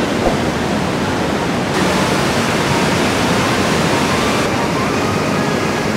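Steady, loud rushing of a waterfall: falling water roaring without a break.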